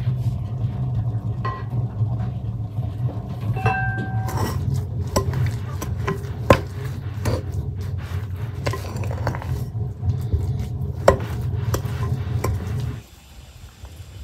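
Metal utensils and dishes clinking and scraping, with one ringing metallic strike about four seconds in, over a steady low hum that cuts off abruptly near the end.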